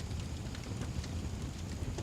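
Wood fire burning with a steady low rumble and a few scattered, faint crackles.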